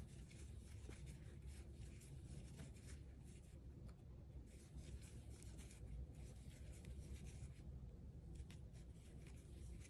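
Faint, irregular scratching and rustling of yarn drawn through stitches by a metal crochet hook, working a row of single crochet.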